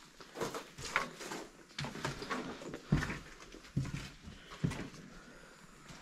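Footsteps crunching and knocking over fire debris, broken plaster and wood on a hard floor, in an irregular walking rhythm of short crunches about one or two a second.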